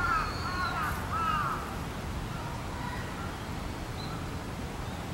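Crows cawing: several harsh caws in quick succession in the first second and a half, then fainter, scattered calls, over a steady low outdoor rumble.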